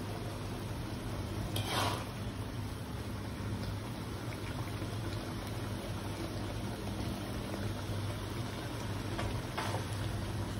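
Thick sweet-and-sour sauce being spooned from a spatula over a fried fish, with a soft wet plop about two seconds in and another near the end, over a steady low hum.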